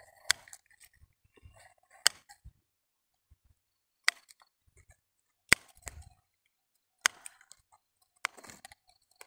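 Steel garden scissors snipping the green side shoots off a young grapevine: six sharp snips about one to two seconds apart.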